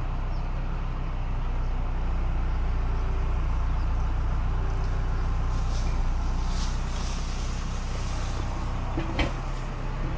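Tractor's diesel engine running at a steady speed, a low even hum.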